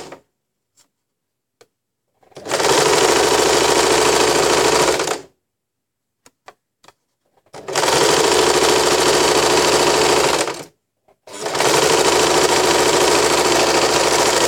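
USHA electric zigzag sewing machine running in three bursts of about three seconds each, stitching a blind hem with a triangle stitch, with short pauses between the bursts. A few faint clicks can be heard in the pauses.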